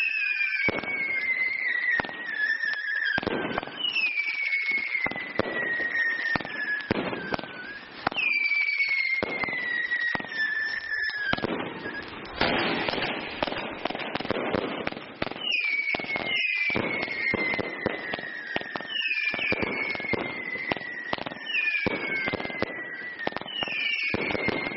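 Bright Star 'The Gamma Project' multi-shot firework going off in a continuous barrage of sharp pops and crackling, with overlapping whistles that each fall in pitch over a couple of seconds. Around the middle, a burst of dense crackling is the loudest part.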